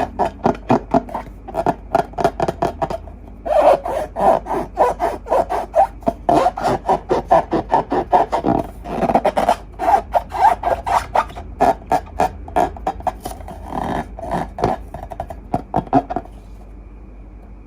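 Slime being squeezed and kneaded by hand, a fast, uneven run of sticky squelching pops about five a second. It pauses briefly about three seconds in and stops near the end.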